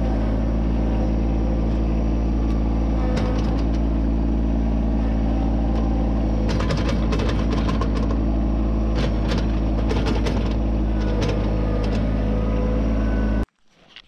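Yanmar 221 compact tractor's three-cylinder diesel engine running steadily as the tractor is driven, heard close up from the operator's seat, with a few scattered clicks and knocks. The sound cuts off abruptly about half a second before the end.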